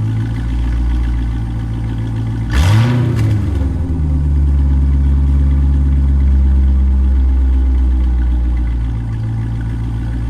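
A 2000 C5 Corvette's LS1 V8 idling through a newly fitted aftermarket cat-back exhaust, with one quick throttle blip about two and a half seconds in that rises and drops straight back to idle.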